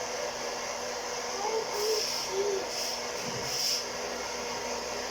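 Home coffee roaster's fan and heater running steadily, blowing hot air through the tumbling beans, with a brief hissing surge about every second in the second half. The beans are in mid-roast, still well short of first crack.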